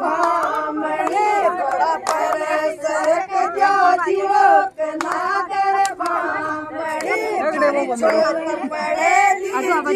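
A group of women singing a Rajasthani folk wedding song together, several voices holding and sliding notes at once, with a few hand claps among them.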